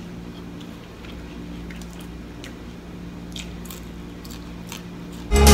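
Quiet eating sounds: chewing, with small clicks and scrapes of a fork on a plate, over a steady low hum. Loud electronic dance music with a heavy beat cuts in suddenly near the end.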